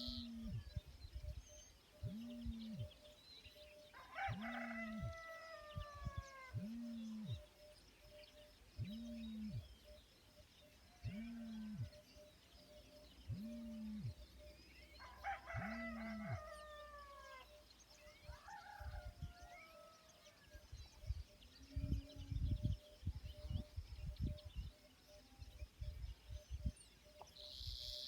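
Roosters crowing, their calls sliding down in pitch at the end, about 4 seconds in and again around 15 and 19 seconds. Under them, a low call repeats roughly every one and a half to two seconds through the first half and then stops.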